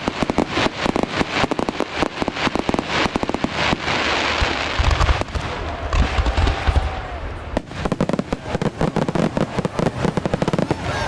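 Fireworks display: a dense, rapid crackle of many small bursts, broken about halfway through by deep booms of larger shells, then dense crackling again.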